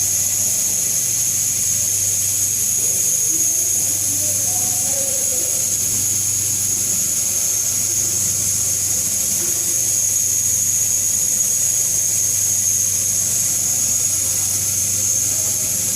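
Large refrigerator's compressor running: a steady electric hum with an even, high hiss.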